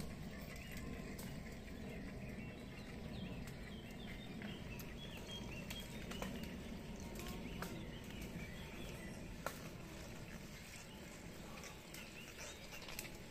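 Mountain bikes ridden uphill past at close range on a dirt woodland trail, with tyre noise and a few sharp clicks, over birds chirping in the trees throughout.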